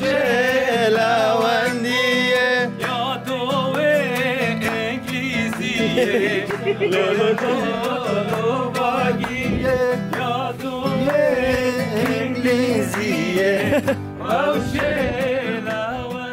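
A man singing a song to a strummed acoustic guitar, the voice wavering in pitch and held on long notes.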